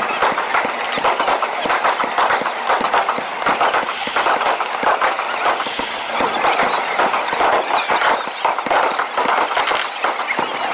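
Fireworks going off in rapid succession: dense crackling and popping with no let-up, and brief spells of hiss about four and six seconds in.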